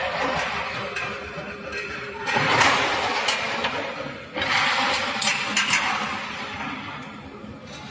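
Hyundai 215 hydraulic excavator working, its engine noise swelling up twice under load, with a few short knocks.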